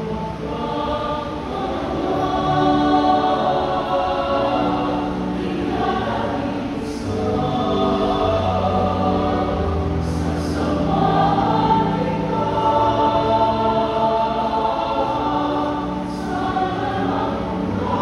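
Group of voices singing a slow hymn together, with long held notes.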